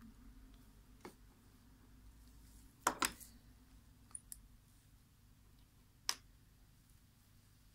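Sharp plastic clicks and snaps from a Microsoft LifeCam Cinema webcam's housing being pried and pulled apart. The loudest is a double snap about three seconds in, with single clicks about a second in, just after four seconds and about six seconds in.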